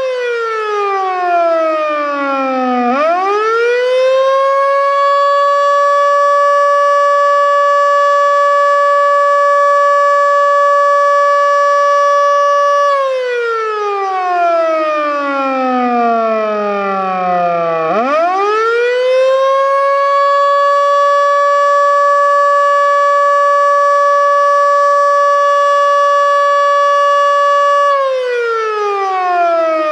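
Federal Signal Model 2 electromechanical warning siren sounding its weekly test in a wail. Its single tone winds down in pitch, spins back up and holds steady for about eight seconds, winds down and back up a second time, and starts to fall again near the end.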